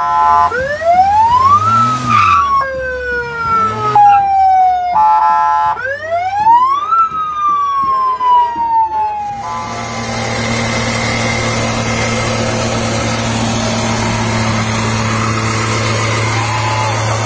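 Electronic vehicle siren sounding. It gives two wails that rise quickly and fall away slowly, with short stepped tones between them. After about nine seconds it gives way to a steady hum and hiss.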